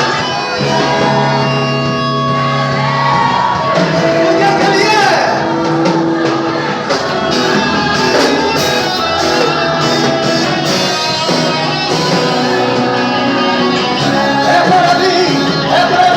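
Live worship music: voices singing over a band, steady and full throughout.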